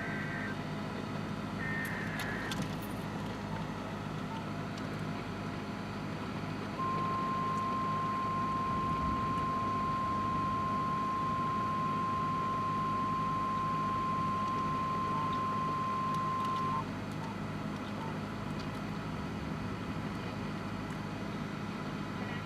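NOAA Weather Radio sounding an alert: the last two short warbling bursts of the SAME data header near the start, then the steady single-pitch 1050 Hz warning alarm tone, held for about ten seconds before it cuts off, which signals a warning such as a tornado warning. A steady vehicle hum lies beneath.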